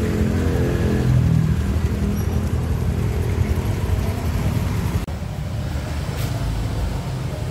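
Motorcycle engines running among street traffic, with a shifting engine note in the first second or so over a heavy low rumble. About five seconds in, the sound changes abruptly to a steadier low rumble.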